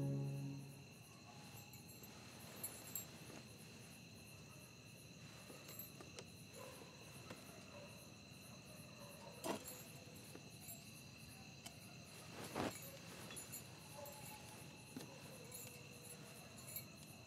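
Faint crickets chirping steadily, a night ambience, with a few soft rustles and knocks scattered through it, the clearest about halfway through and again a few seconds later. Soft music fades out in the first second.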